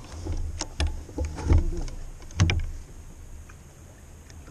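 A run of knocks and clunks on a plastic fishing kayak as gear is handled aboard, the loudest two in the middle, over a low steady rumble.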